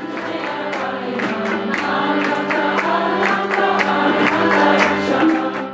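Group mantra chanting with tabla strokes keeping a steady beat over a held low note, growing louder and then cutting off suddenly near the end.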